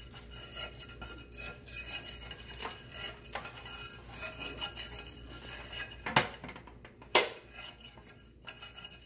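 Kitchen handling noises: a utensil scraping and clinking against a metal cake pan, with small clinks and rubbing, and two sharp clicks about six and seven seconds in.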